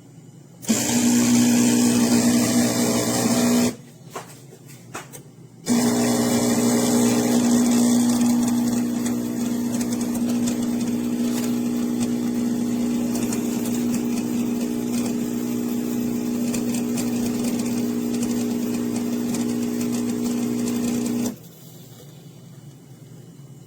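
Chefman CraftBrew espresso machine's 15-bar vibratory pump buzzing steadily with a low hum. It runs for about three seconds, stops for about two, then starts again and runs for about fifteen seconds, a little quieter after the first few seconds.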